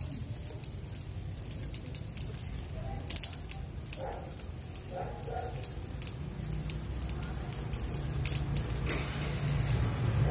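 Clear plastic grafting tape crinkling and crackling in many small clicks as it is pulled and wrapped around an avocado graft, over a low rumble that grows louder toward the end.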